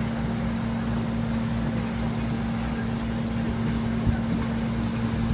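A steady mechanical drone holding one constant low tone over a pulsing low rumble, with a brief thump about four seconds in.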